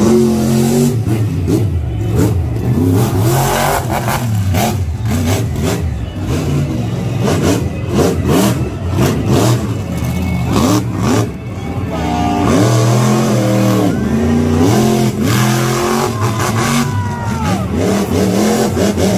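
Monster truck engine revving hard, its pitch rising and falling again and again as the driver works the throttle.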